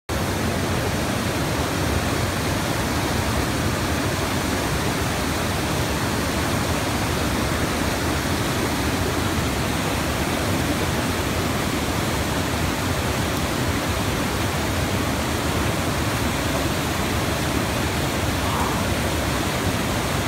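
River rapids: whitewater rushing steadily over and between rocks.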